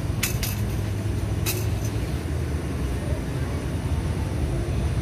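Steady low rumble of motor-vehicle engines. Three sharp metallic clicks sound over it in the first second and a half, two close together and then one more, as a wrench works on the engine's cylinder head.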